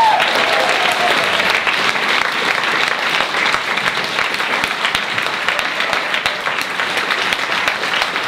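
A live audience and the performers on stage applauding, a dense steady clapping. A held sung note trails off at the very start.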